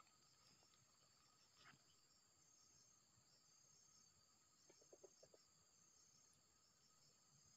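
Near silence with a faint insect chorus: a steady, high-pitched pulsing buzz of crickets or cicadas. About five seconds in, a brief run of five or so soft low notes.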